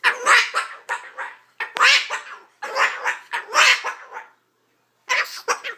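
An upset sulphur-crested cockatoo giving harsh, raspy squawks in quick runs, with a short pause near the end.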